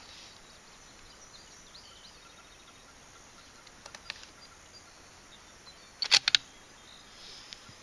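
Rifle bolt being worked: a quick cluster of sharp metallic clicks about six seconds in, chambering the next round in a Ruger American Predator, with lighter ticks before it and one more click near the end. Behind it is a faint outdoor background with small bird chirps.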